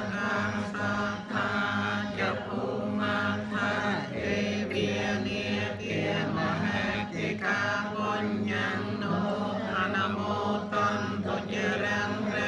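A small group of voices chanting a Buddhist prayer together in Khmer-style recitation, one syllable after another over a steady held pitch, with no pause.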